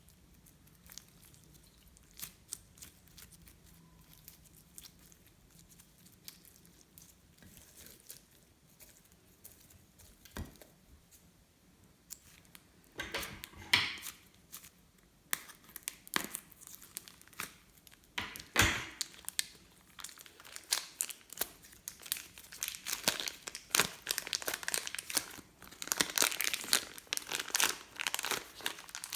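Hands working and mixing slime: a few faint clicks at first, then from about halfway in a dense run of crackling, sticky clicks and pops that grows loudest near the end.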